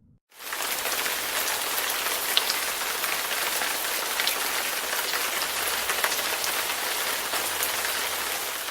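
Rain sound effect: a steady hiss of rain on a surface with scattered drop ticks. It starts about half a second in and fades out near the end.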